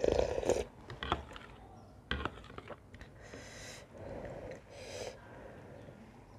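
A person slurps thick buckwheat soup off a metal spoon; the loudest slurp is at the start. Sharp clicks of the spoon against the bowl follow about one and two seconds in, then softer breathy blowing and sipping.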